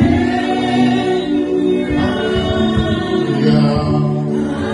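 Gospel worship music: voices singing long held notes, with a choir-like sound.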